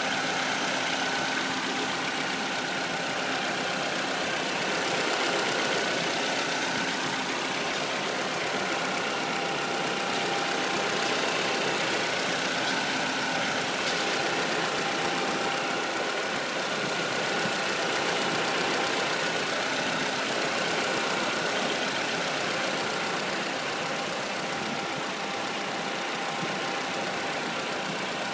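Ford Fiesta engine idling steadily after its first start of the day, with a steady whining tone over the engine sound: the noise this car makes only when first started each day.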